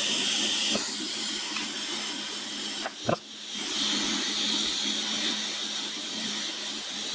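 Hot air rework station blowing a steady hiss while a replacement memory chip is reflowed onto the board. The hiss drops out briefly with a click about three seconds in, then comes back, over a low steady hum.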